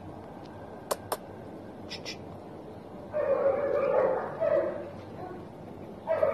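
A few sharp clicks in pairs, then about two seconds of a German Shepherd puppy whining and yipping, starting about three seconds in.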